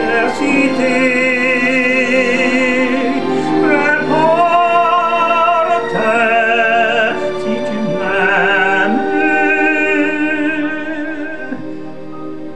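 A man singing a French ballad with a microphone, a series of long held notes with wide vibrato, over a keyboard backing track. The music eases off near the end.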